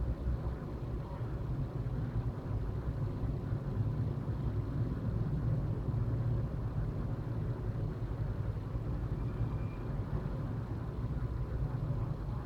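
Steady low rumble of background noise, uneven but continuous, with nothing else prominent.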